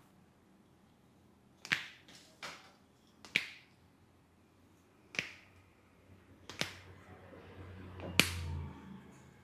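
Sharp hand slaps of a barber's Indian head and back massage: six separate strikes at uneven intervals, the last the loudest.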